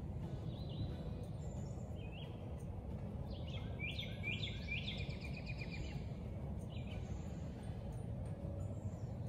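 Songbirds chirping: a few short calls, then a quick run of repeated chirps for about two seconds in the middle, over a steady low outdoor rumble.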